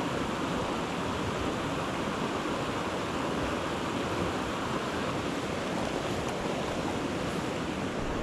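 Steady rush of creek water running over a shallow riffle.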